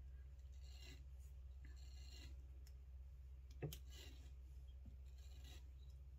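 Faint soft rustling of washed wool fibres being drawn by hand off a mounted wool comb through a diz, about four slow pulls, with one sharp click about three and a half seconds in.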